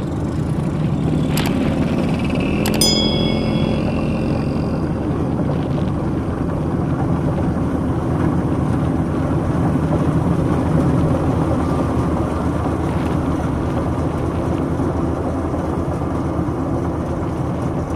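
Maxxi Bimo 102L rice combine harvester running steadily while it works a flooded paddy. A couple of sharp clicks come early, and a short ringing metallic tone sounds a little under three seconds in.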